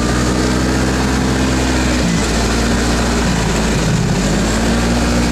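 Snowmobile engine running under way. It eases off about two seconds in and picks up speed again toward the end.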